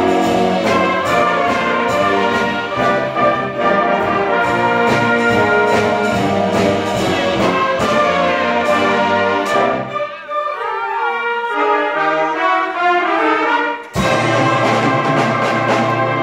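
Student concert band playing: saxophones, brass and tubas together. About ten seconds in the low parts drop out for a lighter passage of higher lines, then the full band comes back in with a sharp attack near the end.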